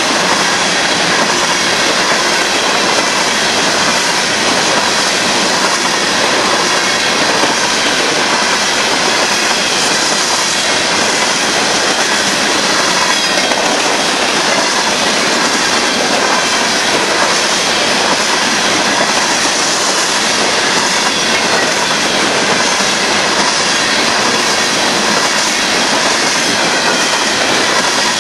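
Union Pacific grain train, a string of covered hopper cars, rolling steadily past, with the constant rush and rattle of steel wheels on the rails.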